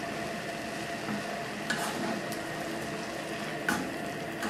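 Steady sizzling hiss from a frying pan of chicken, broccoli and mushrooms heating in cream, with a few light knocks as a spatula begins stirring near the end.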